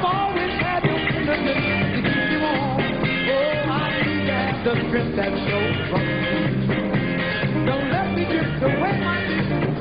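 A live band playing upbeat 1970s soul-disco, with a wavering melodic line over a stepping bass line. It is a dull old recording with no top end.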